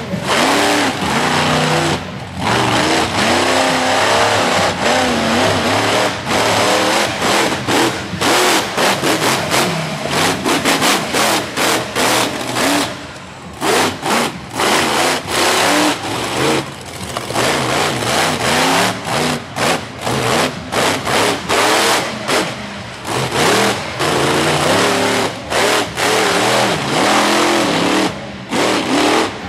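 Monster truck engine revving hard, its pitch rising and falling over and over as the truck drives the dirt course, with many brief dropouts in the sound.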